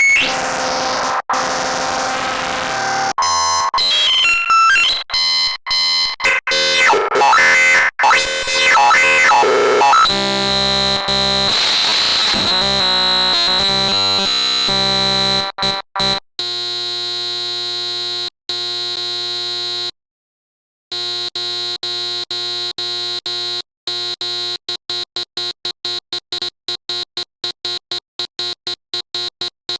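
Harsh electronic sound from a REAPER JSFX software synth plugin. For the first ten seconds it is glitchy, with gliding pitches. Then comes a dense steady buzz that cuts out briefly around twenty seconds in, and after that the buzz is chopped into rapid stutters that come faster toward the end.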